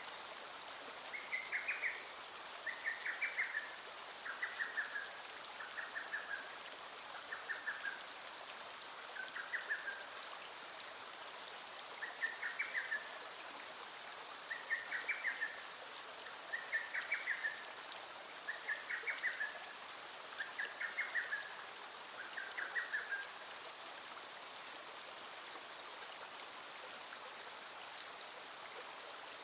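Stream water running steadily over stones, with an animal's short trilled call, rapid pulses under a second long, repeated about a dozen times every couple of seconds and stopping several seconds before the end.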